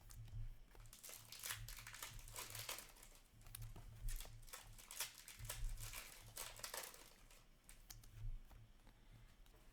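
Foil wrappers of trading card packs crinkling and rustling in quick, irregular bursts as packs are handled and opened.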